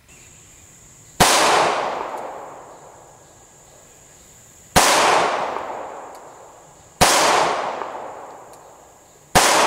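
Four pistol shots from a Ballester Molina .45 ACP semi-automatic, fired a few seconds apart at uneven intervals. Each is a sharp crack followed by an echo that dies away over about two seconds.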